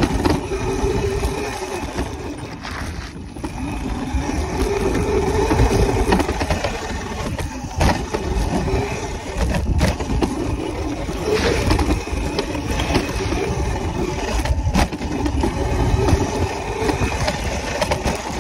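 Small dirt bike engine running and revving up and down over a dirt track, under heavy wind rumble on the handlebar-mounted microphone. A few short knocks come from bumps along the way.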